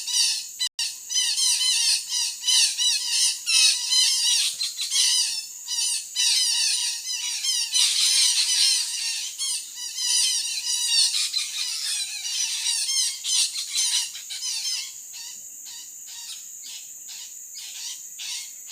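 Parakeets (betet) squawking: a dense run of rapid, harsh, overlapping calls that thins out after about fifteen seconds, over a steady high insect drone.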